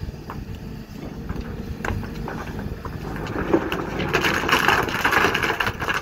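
Kobelco hydraulic excavator's diesel engine running, with scattered sharp knocks of stones striking each other. From about three seconds in, a louder rough rushing noise builds and then cuts off sharply.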